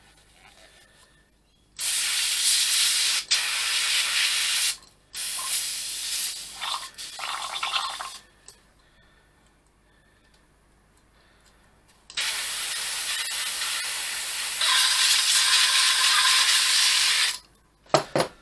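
Small gravity-feed paint spray gun hissing with compressed air in three bursts as the dark green coat is sprayed, the third burst uneven and sputtering. After a pause comes a long steady hiss of about five seconds that gets louder partway through, then two sharp knocks near the end as the gun is set down on the bench.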